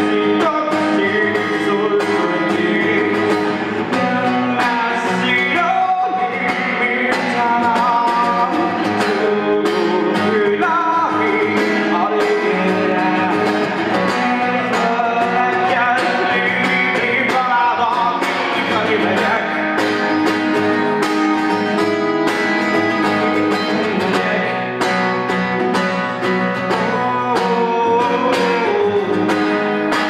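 A man singing a slow song to his own strummed acoustic guitar, holding and bending long notes over a steady strumming rhythm.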